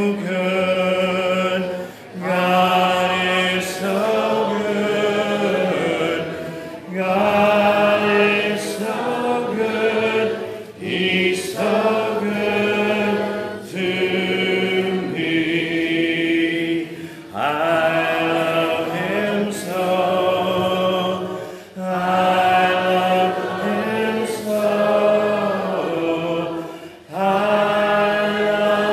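A congregation singing a hymn a cappella, without instruments, in held phrases a few seconds long with brief breaks for breath between them.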